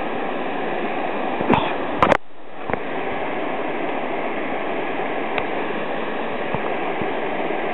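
Steady rush of a swollen mountain stream running high. There are a couple of sharp knocks about two seconds in.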